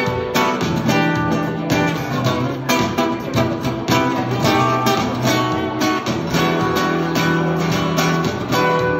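Small-bodied acoustic guitar played live: chords strummed and picked in a quick, steady rhythm.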